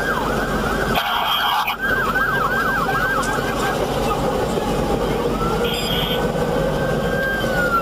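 Emergency vehicle siren, first in a fast yelp of about four sweeps a second, then, about five seconds in, a slower wail that rises, holds and falls near the end, over a steady background rumble.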